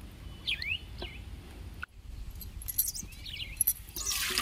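Small birds chirping with short sweeping calls, then about four seconds in a loud splash as water is poured from a steel bowl into a steel pot.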